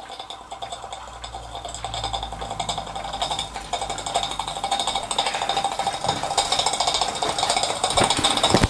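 Small model steam engine running on steam from its gas-fired copper boiler, with a fast, even beat of its moving parts and exhaust that grows louder as it goes. It is very quiet, with hardly any noise.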